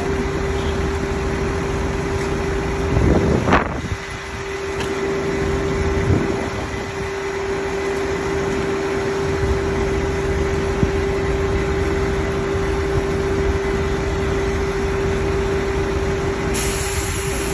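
Engine running steadily at idle, a constant hum, with a brief louder surge about three seconds in.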